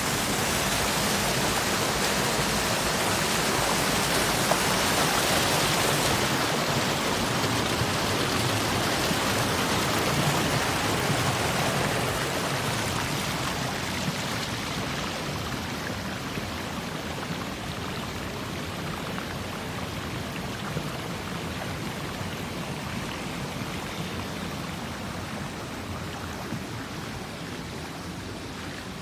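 River water flowing over a shallow rocky bed, a steady rushing that eases off somewhat after about twelve seconds.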